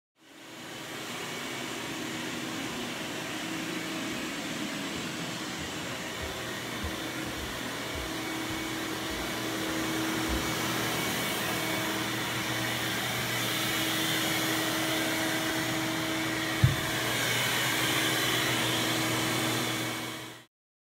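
RIDGID wet/dry shop vacuum running steadily with a constant hum, with a single sharp click late on.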